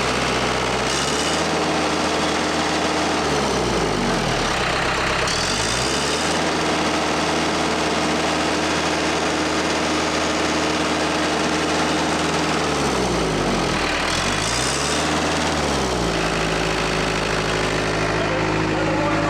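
Case 430 skid steer's 4.5 FPT diesel engine running at speed. Its revs dip and recover twice, then settle to a lower speed near the end. It runs fairly well on new remanufactured injectors but with a slight miss that the mechanics put down to the number 2 cylinder, which is low on compression.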